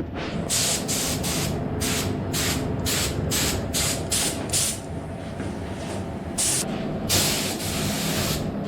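Air spray gun triggered in short hisses, about two a second for four seconds, then one more short hiss and a longer one of about a second and a half near the end, over a steady low hum.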